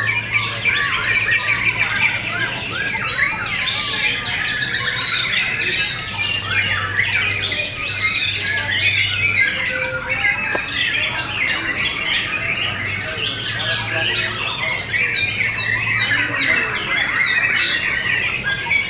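White-rumped shamas (murai batu) singing nonstop, several birds' songs overlapping in a dense run of fast whistles, trills and chattering notes. A low steady hum comes and goes underneath.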